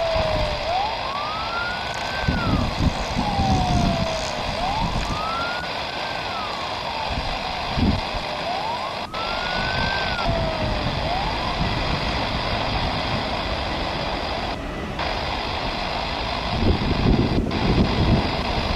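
A wailing siren rises and falls about every four seconds and fades out after about eleven seconds. Under it, the Boeing 777's GE jet engines give a steady whine and rumble.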